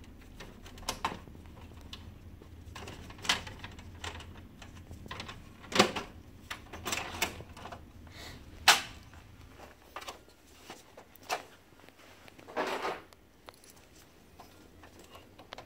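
Scattered plastic clicks, knocks and a short rattle from a laser printer's right-side access door being unlatched and swung open and its inner parts handled. About a dozen sharp taps, with two louder knocks near the middle.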